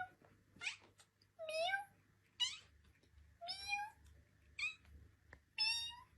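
A cat meowing repeatedly, about seven short meows roughly a second apart, each bending in pitch: a chatty cat 'talking'.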